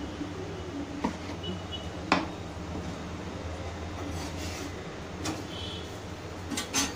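Stainless-steel mixer-grinder jar being handled, lifted off the grinder base and set down on a stone counter: a handful of separate sharp knocks and clinks over a low steady hum.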